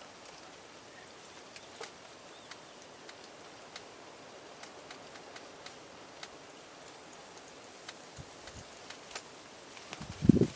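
Quiet outdoor ambience: a steady hiss with scattered faint ticks and light rustles, then a sudden loud low thump near the end.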